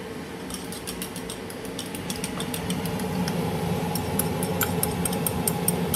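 Chopsticks clicking quickly against a ceramic bowl as eggs are beaten, then clinks of the bowl and utensils against a stainless steel pan as the eggs are poured in, over a steady low hum.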